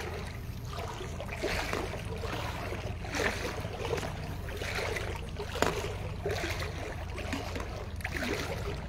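Water swishing and splashing as legs push through thigh-deep floodwater, coming in uneven surges about every second, with a sharper splash about five and a half seconds in, over a steady low hum.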